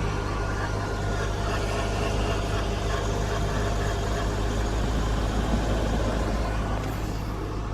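2009 Mitsubishi Lancer idling on a cold start, with a steady electronic-sounding whine over the engine. It seems to come from under the driver's side near the battery and shows up only on cold starts.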